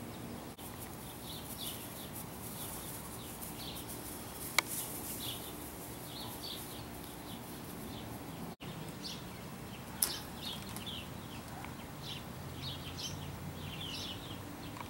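Small birds chirping in quick short notes over a steady outdoor hum, with a sharp click about four and a half seconds in and another about ten seconds in.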